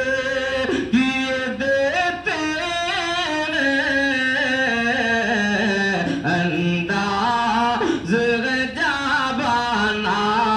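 A man singing a naat, holding long drawn-out notes that glide and turn ornamentally between the lines of the verse.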